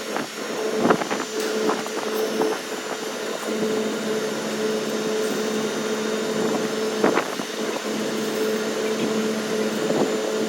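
Steady mechanical hum of a running Daikin rooftop air-conditioning unit, with two steady tones in it, a lower one coming in a few seconds in. A few light knocks and clicks sound over it, the clearest about a second in and about seven seconds in.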